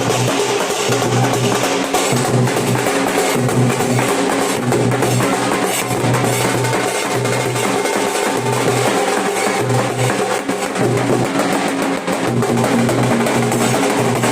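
Nashik dhol ensemble drumming: large barrel drums beaten together in a loud, steady, driving rhythm that does not let up.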